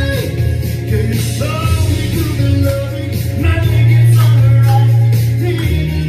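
A man sings into a karaoke microphone over a loud amplified pop backing track with a heavy bass line. The music swells about four seconds in.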